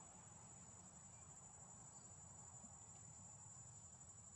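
Faint, steady high-pitched trilling of insects in the forest canopy.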